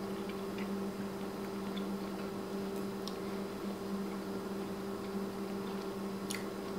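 Steady low electrical hum with a few faint short clicks, the sharpest near the end, as someone quietly chews and handles a fork over a plastic food container.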